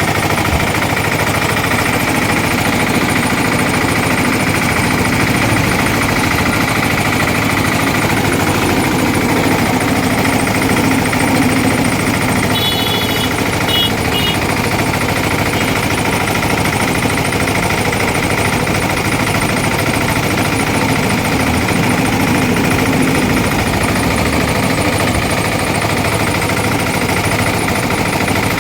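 Motor-driven sugarcane juice crusher running steadily, a constant mechanical hum.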